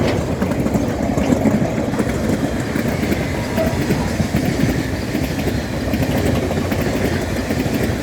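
Freight train rolling past, a steady noise of steel wheels running on the rails.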